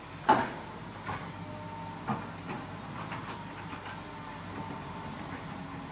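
Komatsu PC200-7 hydraulic excavator digging rocky soil, its diesel engine running steadily. The steel bucket clanks sharply against stones: one loud knock just after the start, lighter knocks about a second and two seconds in, then smaller ticks, with a thin squeal in the middle and again near the end.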